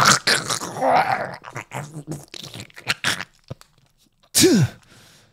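A man's acted, strained scream with gargling, choking crackles, then a short groan falling in pitch near the end: a voiced scream of agony.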